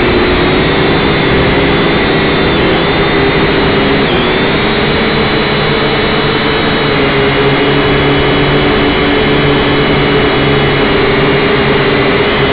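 Syma X5C quadcopter's small brushed motors and propellers whirring steadily in flight, heard loud and close from the drone's onboard camera, the pitch dipping briefly about four seconds in as the throttle changes.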